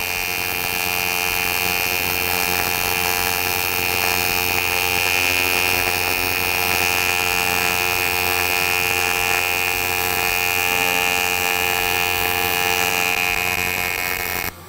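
AC TIG welding arc on 1/8-inch aluminum plate from an Eastwood TIG 200 inverter welder: a steady, loud buzz with a high whine, held under the foot pedal as the bead is laid. The arc cuts off suddenly near the end as the pass is terminated.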